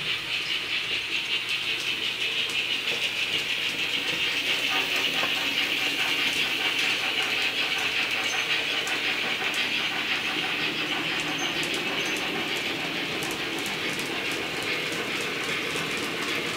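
TT-scale model steam locomotive running with a train of freight wagons: steady, rhythmic steam chuffing with a hiss from its sound, and the wagons' wheels clicking over the track, more clicks in the second half.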